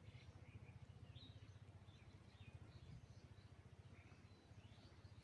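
Near silence: faint, scattered chirps from small birds over a low, steady outdoor rumble.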